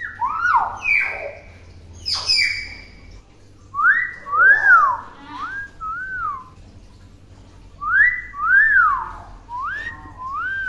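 Common hill myna whistling a learned tune in clear rising-and-falling notes, with one sharp downward sweep about two seconds in, then the same four-note phrase whistled twice.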